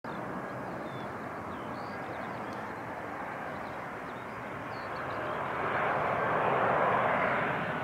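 Boeing 737-900 airliner on approach with its CFM56-7B turbofan engines running, a steady jet noise that swells louder from about five seconds in as the plane nears.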